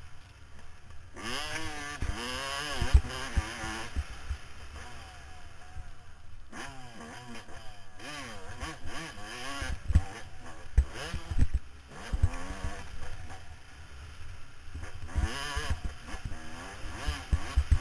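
Motocross dirt bike engine revving hard through the gears, then dropping off the throttle, three times over, with a steady low rumble of wind and short thumps from the bumpy track.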